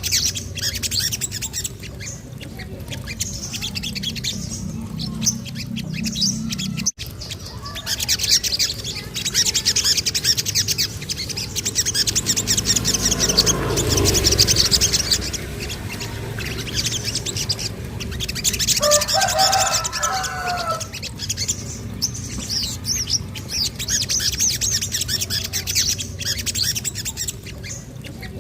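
Rapid, high-pitched chirping and trilling from a sogon (little spiderhunter), almost without pause, over a low hum. About 19 seconds in, a lower, wavering call sounds for a couple of seconds.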